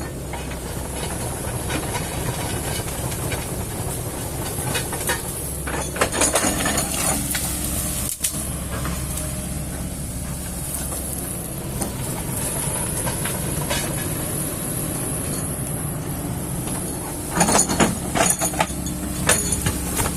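Kobelco hydraulic excavator's diesel engine running steadily under load while it digs a ditch in peat soil. There are two spells of clattering knocks, about six seconds in and again near the end.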